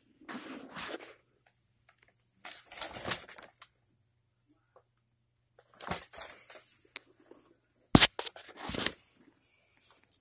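Paper wrappers crinkling and rustling in four short bursts as a cat moves over and paws at them, with one sharp knock about eight seconds in.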